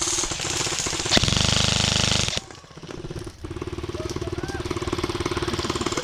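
Airsoft electric guns firing on full auto: a fast, even rattle of shots with a louder, closer burst about a second in that lasts about a second, then a short lull before the rattle resumes.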